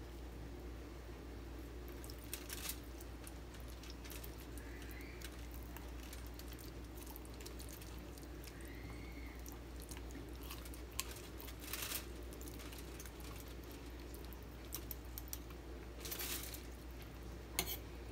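Faint, scattered soft clicks and rustles of a spoon and fingers working tomato sauce into a whole mullet on crinkly aluminium foil, over a steady low hum.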